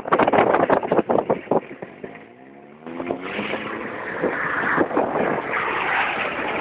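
Off-road vehicle driving over rough, muddy ground: dense knocking and rattling, then the engine revs up with a rising pitch about three seconds in, followed by steady engine and tyre noise.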